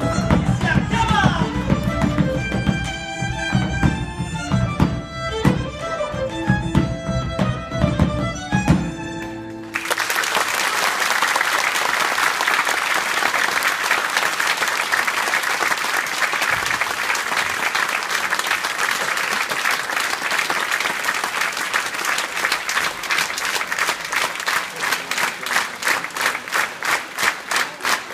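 A tango ensemble of bandoneon, violin, piano and double bass plays the closing bars of an Argentine folk dance tune, stopping abruptly about ten seconds in. An audience then applauds, and near the end the applause turns into rhythmic clapping in unison.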